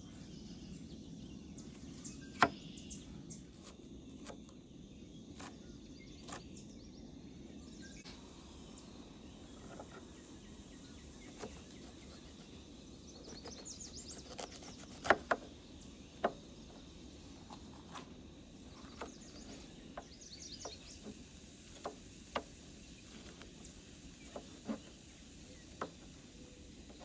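Scattered sharp clicks and taps of utensils against camp cookware while an omelet cooks, the loudest about two seconds in and again around fifteen seconds, over a steady low background noise. Birds chirp faintly a couple of times.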